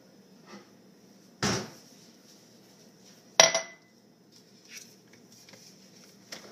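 A drinking glass set down on a hard counter about three and a half seconds in, a sharp clink that rings briefly. A duller knock comes about a second and a half in, and there are small handling clicks near the end.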